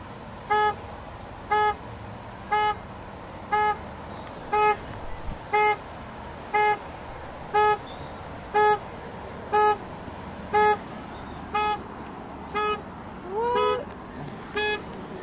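Car horn sounding in short, evenly spaced blasts about once a second: the pulsing of a triggered car alarm.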